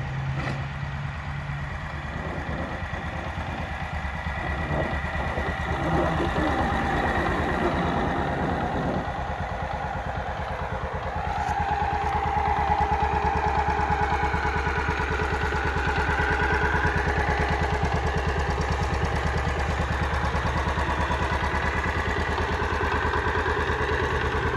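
Small gasoline engine of a walk-behind commercial mower, converted to a radio-controlled hybrid electric drive, running steadily. It gets louder about halfway through.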